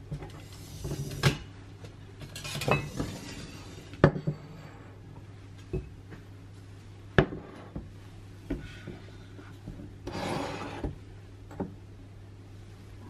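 Kitchen utensils, wooden spatulas and metal mesh strainers, clattering and scraping as they are lifted out of a perforated stainless-steel utensil holder. Several sharp clinks and knocks come as the holders and ceramic utensil crocks are set down on the countertop, over a low steady hum.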